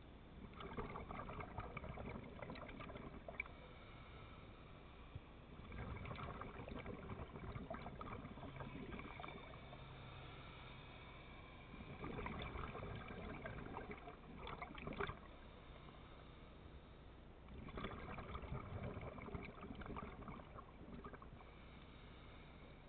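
Scuba diver's exhaled bubbles from the regulator, heard underwater: four bubbling bursts about three seconds long and about six seconds apart, with quieter inhaling spells between them.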